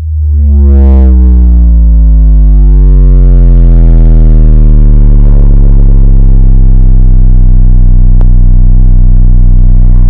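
Tiny 3D-printed ported mini-subwoofer playing a bass demo: a deep synth bass note that glides down in pitch over the first couple of seconds, then holds steady and very loud.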